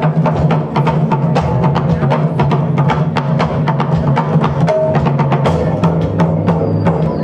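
Live taiko drumming with a funk band: dense, fast drum strikes and sharp clicks over a steady bass line.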